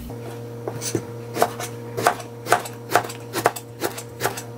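Kitchen knife slicing through an eggplant on a cutting board, each cut ending in a short knock on the board. The knocks are sparse at first, then fall into a steady rhythm of about two a second from about a second and a half in.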